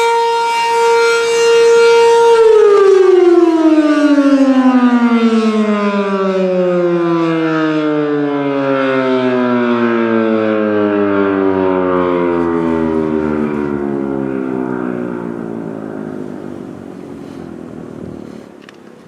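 B&N Mobil Directo BN52 outdoor warning siren at the end of its test. It holds a steady tone for about two seconds, then winds down, its pitch falling slowly and its sound fading away near the end as the siren coasts to a stop.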